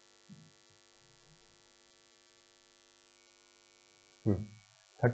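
Steady electrical mains hum, a stack of even tones, under a quiet room, with a brief vocal sound a little over four seconds in.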